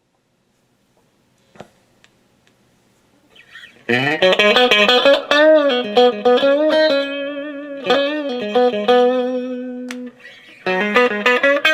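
Electric guitar played through a hand-built Fender AA964 Vibrolux Reverb clone amp with the reverb on, heard through a bare bench speaker without a cabinet, which makes it sound real tinny. After about four seconds of near quiet, a run of bent and wavering notes starts, breaks off briefly, then picks up again.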